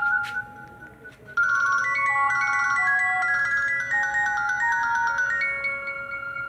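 Nokia N70 ringtones playing. One melody dies away in the first second, then about a second and a half in a new ringtone starts: a quick melody of short, clear notes that fades near the end.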